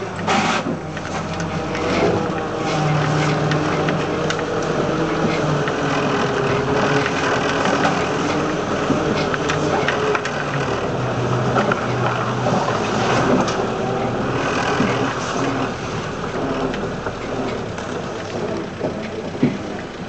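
Land Rover Series 2a short-wheelbase's 2.25-litre four-cylinder petrol engine running at low revs, its note rising and falling, heard from inside the cab. Frequent rattles and knocks from the body as it crawls over rough ground.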